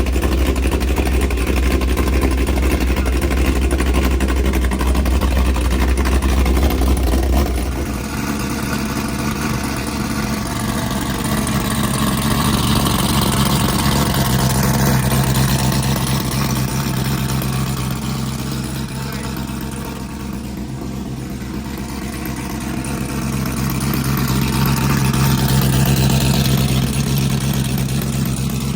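A car engine running steadily, then stepping up to a higher steady speed about seven or eight seconds in and holding there, with the speed easing and picking up again later.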